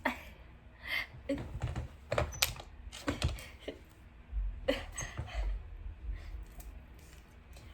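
Irregular light clicks and taps of handling, in clusters, with short rustles between them.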